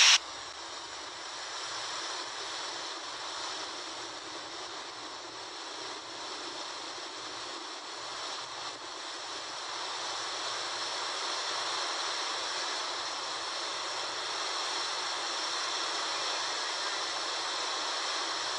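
Muddy floodwater rushing in a torrent: a steady rush that grows slightly louder about halfway through.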